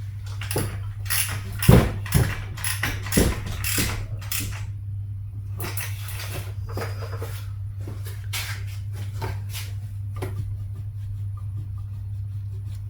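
Metal tools and engine parts clinking and knocking as they are handled, busiest and loudest in the first few seconds and lighter afterwards, over a steady low hum.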